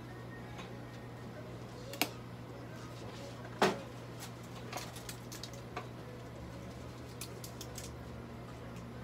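Scattered light clicks and knocks of small objects being handled, the loudest about three and a half seconds in and a run of small ticks near the end, over a steady low hum.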